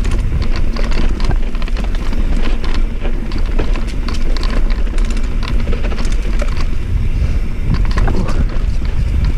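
Rurok Cordillera mountain bike descending a dirt downhill trail: steady wind buffeting the camera microphone, with frequent rattles and clicks from the bike as it rolls over bumps.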